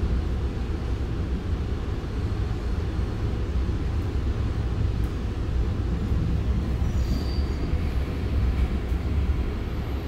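Running noise inside a moving REM electric light-metro car: a steady low rumble, with a brief faint high tone about seven seconds in.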